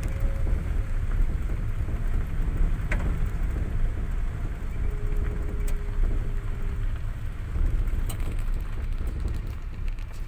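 A car driving, with a steady low rumble of road and engine noise and a few faint clicks.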